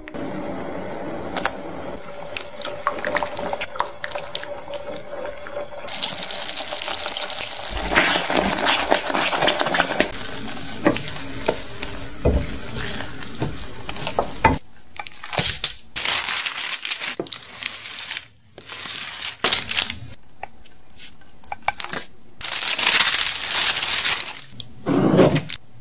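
A silicone spatula stirring and scraping a thick fruit puree in a nonstick pan as it cooks down, with soft bubbling and small clicks against the pan. The sound changes abruptly a few times.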